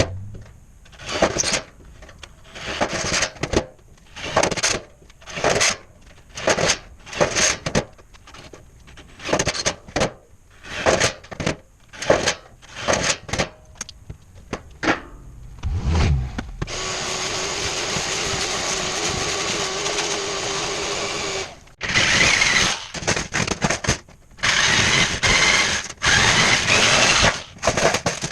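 Workshop tool work on belting: a string of short, sharp bursts about once a second, then a power drill running steadily for about five seconds, then more quick bursts in a cluster near the end.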